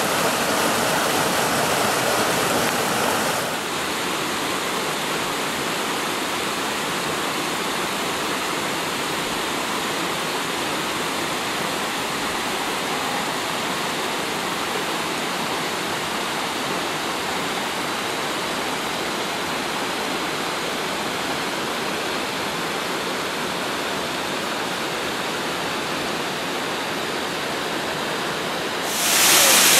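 Waterfall rushing, a steady noise of falling water. It is loud and close at first, drops abruptly to a quieter, more distant rush about three and a half seconds in, and jumps louder again just before the end.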